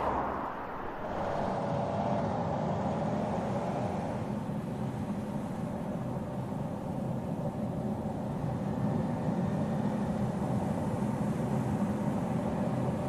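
Audi Q3 compact SUV driving along a road: steady engine hum and tyre noise, after a brief swell of noise at the start.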